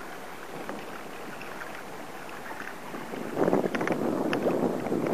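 Water splashing and rushing along the hull of a Hobie Mirage sailing kayak, with wind on the microphone; it turns louder and rougher about three and a half seconds in.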